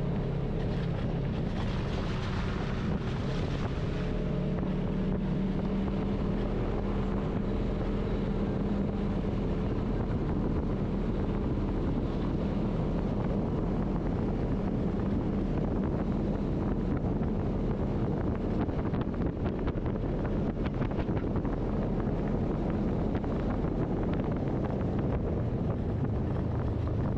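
Polaris RZR side-by-side's engine running at a steady pace while driving, with wind noise on the microphone.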